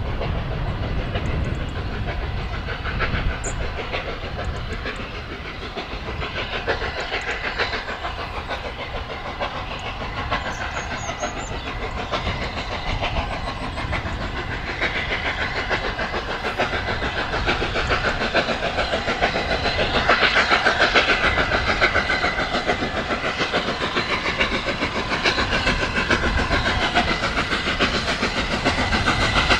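LNER A3 Pacific steam locomotive 60103 Flying Scotsman working hard with an eight-coach train, its three-cylinder exhaust beating quickly. The sound grows steadily louder as the engine approaches and is loudest about two-thirds of the way through.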